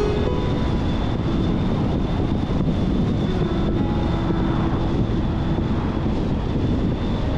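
Steady road and tyre noise of a car driving at a constant speed, with some wind noise.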